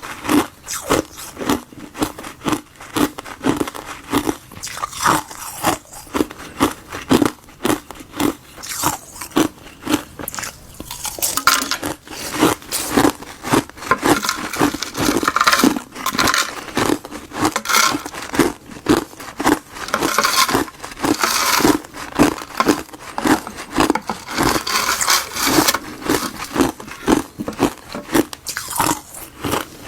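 Ice made from frozen bitter buckwheat and gardenia tea being bitten and crunched, with sharp crunches coming about twice a second and a denser flurry of crunching around the middle.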